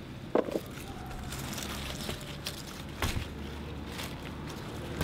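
Hands handling leafy garden plants: rustling leaves and a couple of light snaps, about half a second in and again about three seconds in, over a faint steady low hum.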